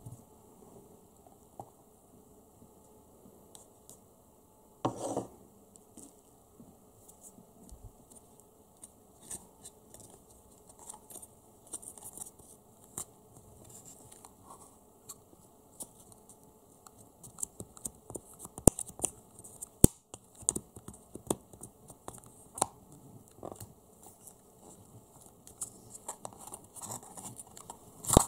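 Wooden spoon scraping and clicking against a clear plastic cup as Play-Doh is dug out, with irregular small clicks and rustles from fingers working a plastic toy free of the dough. A louder knock comes about five seconds in, and the clicking grows busier in the second half.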